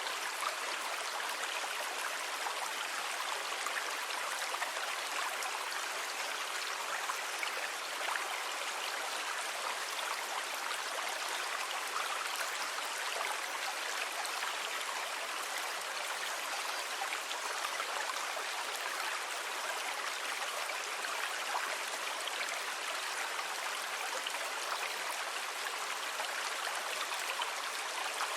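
Sea water making a steady, even wash with a fine fizzing crackle and no separate wave swells.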